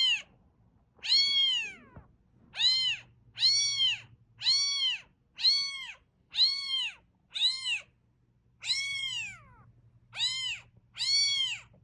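Cat meowing over and over: about ten short meows, each rising and then falling in pitch, roughly one a second, over a faint low hum.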